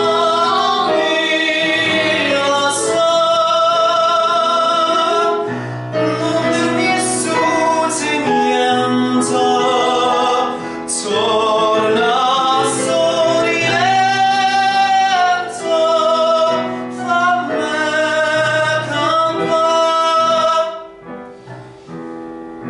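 A solo voice sings several long phrases of a lyrical song with vibrato over an instrumental backing track, and stops near the end.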